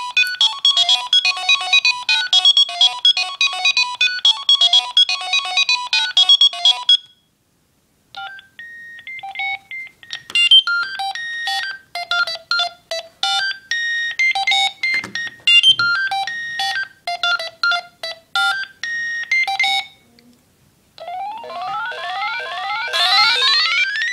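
Philips Fisio 625 mobile phone playing its built-in ringtones, one after another. A fast electronic tune stops about seven seconds in; after a second's pause a different tune plays for about twelve seconds; near the end a third ringtone of quick rising runs starts.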